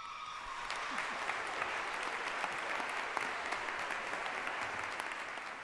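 Audience applauding: many hands clapping steadily. At the very start it takes over from a children's choir's final held note as the note dies away.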